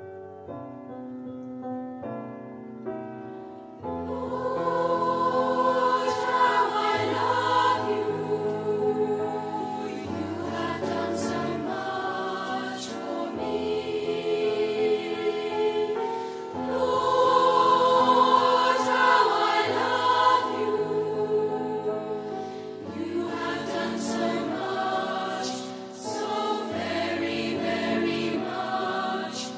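Keyboard introduction, then a choir of young voices comes in about four seconds in, singing a Christian worship song with keyboard accompaniment.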